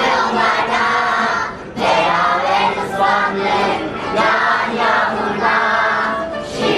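Children's choir singing a Turkish song together, in sung phrases with a short break between them about two seconds in.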